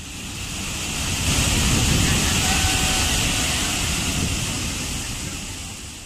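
Waterfall rushing: a loud, steady wash of falling water with a deep low rumble under it. It fades in over the first second or so and fades out near the end.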